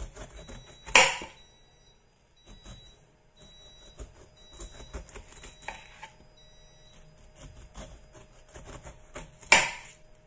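Large kitchen knife slicing downward through pineapple rind, a faint crackly crunching of many small ticks. Twice, about a second in and near the end, there is a louder sharp knock on the wooden cutting board.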